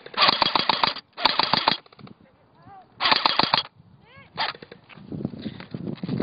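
Airsoft electric guns firing full-auto bursts: three rapid clattering bursts of under a second each, then shorter strings of shots.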